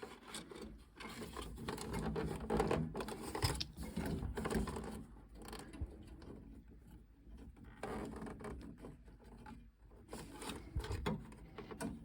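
Irregular small clicks, rattles and scrapes of hand tools and pipe fittings being handled while a new fibre washer is fitted to a boiler's cold main isolation valve.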